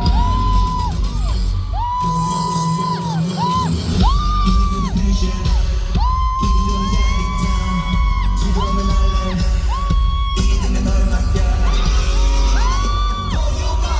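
Live pop vocals over a loud backing track with a heavy bass beat, played through a concert hall's sound system, with held, sliding sung notes throughout.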